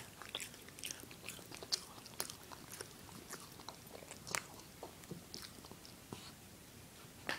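Dog gnawing on a rawhide chew: irregular sharp clicks and crunches of teeth on the hide, several a second, with a few louder snaps.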